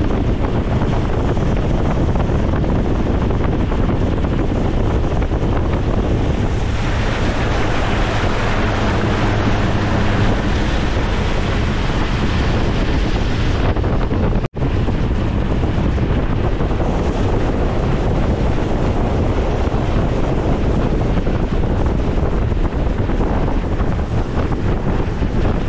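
Strong wind buffeting the microphone, with waves on the lake beneath it: a loud, steady rush. There is a faint low hum for a few seconds about a quarter of the way in, and a sudden brief dropout a little past halfway.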